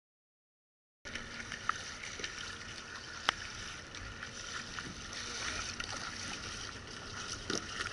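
Steady hiss of water, with a few sharp knocks, the loudest about a third of the way in.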